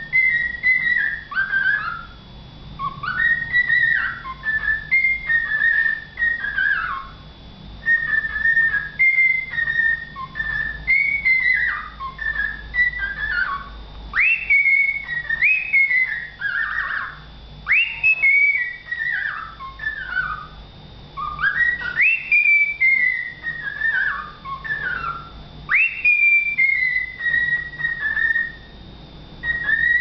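Cockatiel whistling a tune in repeated phrases of clear notes. Many phrases open with a quick upward sweep and then fall away in steps, with short pauses between them.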